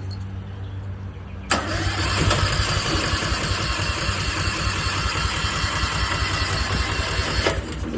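Westinghouse 20,000-watt portable generator's engine cranking on its electric starter for about six seconds, then cutting off without catching. It won't fire because no fuel is reaching the engine.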